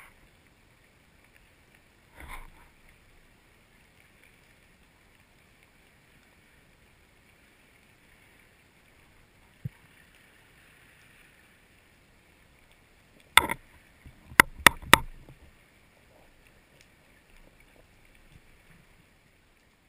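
Underwater sound from a camera on a speargun: a faint steady hiss of the water, with a knock and then three quick sharp clicks about two-thirds of the way through.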